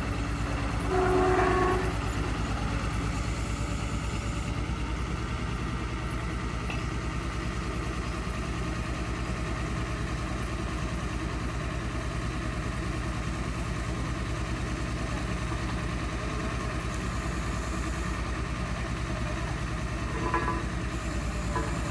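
Diesel engine of a truck-mounted borewell drilling rig running steadily, a low throbbing drone. A brief horn-like tone sounds about a second in.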